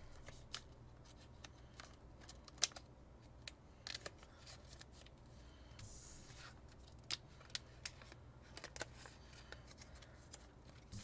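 Pokémon trading cards being handled and set down on a table: scattered light taps and clicks, the sharpest about two and a half seconds in, with a short rustle of a card sliding around six seconds in.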